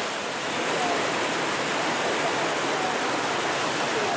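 Whitewater river rapids rushing steadily: a dense, even noise of churning water.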